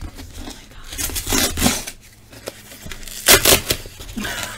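Cardboard of a glued-and-taped USPS Priority Mail box being torn and pulled apart by hand, with scraping rips. There is a louder rip about a second and a half in and the loudest one a little past three seconds.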